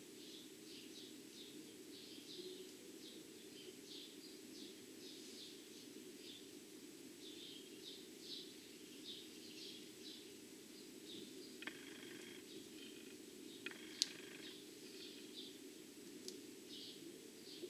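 Faint bird chirping, short calls repeating all through, over a low steady hum, with one sharp click about fourteen seconds in.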